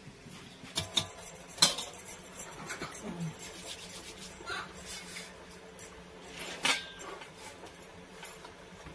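Scattered light clinks and taps of steel utensils and plates as the dough is handled, a few knocks standing out about a second, a second and a half, and nearly seven seconds in, over a faint steady hum.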